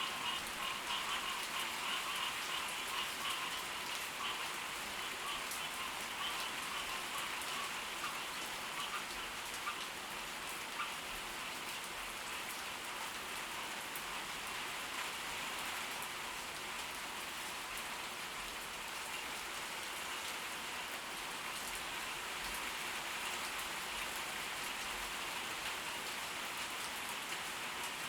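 Steady tropical-storm rain falling, with fine ticking drops. For the first several seconds a frog chorus croaks in a quick pulsing rhythm, fading out by about ten seconds in.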